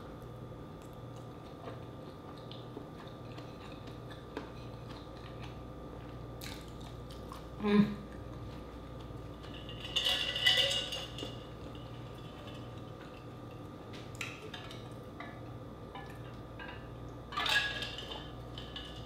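Quiet eating and table-handling sounds over a steady low electrical hum: one short thump about 8 seconds in, then brief clattering about 10 seconds in and again near the end as an insulated water bottle is picked up and handled.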